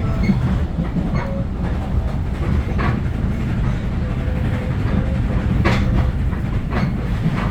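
Train rolling along the track: a steady low rumble with several sharp clacks of the wheels at irregular intervals.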